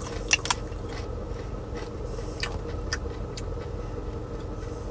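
Caramel popcorn being chewed: scattered soft crunches and clicks over a steady low hum in a car cabin.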